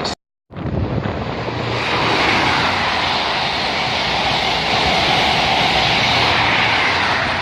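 A train passing at speed: a steady rushing roar of wheels and air. It cuts in abruptly after a brief dropout, builds over the first couple of seconds, then holds.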